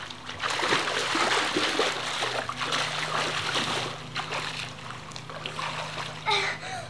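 Splashing water as a child dives forward and swims underwater in a swimming pool. The splashing is loud for about three seconds, then dies down.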